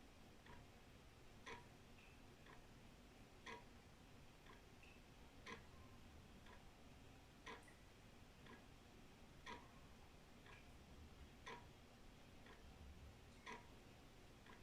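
Old wall clock ticking quietly and evenly, about one tick a second, alternating a louder tick with a softer tock.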